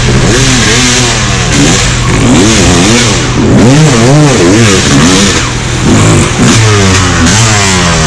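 Dirt bike engine revved in repeated blips, its pitch rising and falling over and over, over a steady low idling engine.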